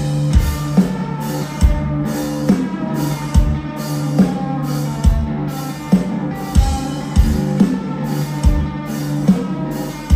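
Live rock band playing at full volume: drum kit, bass guitar and electric guitar. The drums come in right at the start, with a steady kick drum and cymbals on the beat under sustained guitar and bass.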